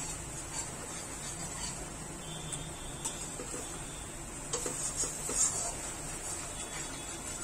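A spatula stirring and scraping thick tomato-onion masala in a metal kadai, with scattered soft clicks and scrapes against the pan over a faint steady frying sizzle.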